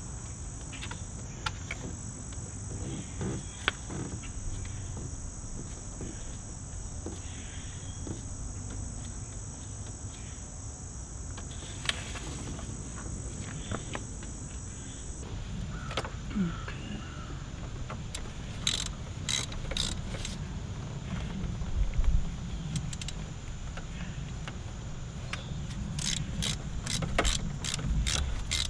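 Hand ratchet with a 13 mm socket clicking in rapid runs, mostly in the second half, as the bolts holding new knock sensors to a BMW M54 engine block are tightened. Scattered knocks of the tool against the engine come in between.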